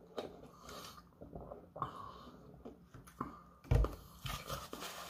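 Sipping a drink through a straw from a large paper soda cup, a run of small irregular mouth noises. About three and a half seconds in comes a single dull thump, the loudest sound, as the cup is set down on the table.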